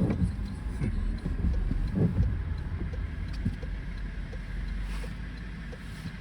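Car driving, heard inside the cabin: a steady low road-and-engine rumble, with a few short squeaky sweeps in pitch in the first half.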